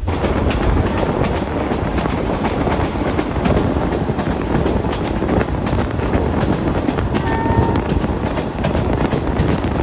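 Vietnamese passenger train running, heard from on board: wheels clattering over the rail joints in a dense rumble with frequent clicks. It gets suddenly louder and brighter at the start. A short, faint high tone sounds about seven seconds in.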